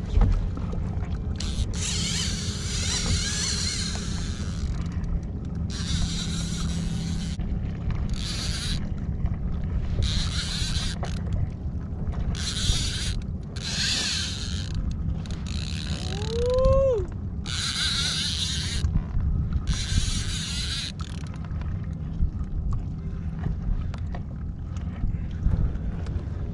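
Spinning fishing reel buzzing in about ten short bursts of a second or so each while a fish is fought on a bent rod, the bursts stopping in the last few seconds. Under it runs a steady low rumble of water and wind, and about two-thirds through a brief tone rises and falls.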